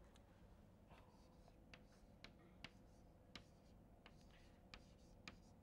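Chalk on a blackboard as numbers are written: a string of faint, scattered light taps and ticks.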